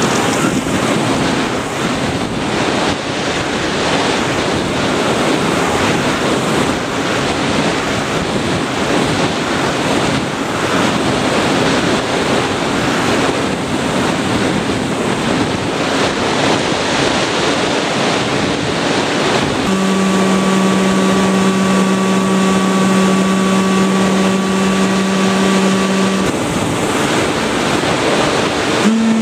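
Steady rushing wind noise on the Sky Surfer's onboard FPV microphone in flight. About two-thirds of the way through, the plane's electric motor comes in with a steady whine, holds for about six seconds, then cuts off.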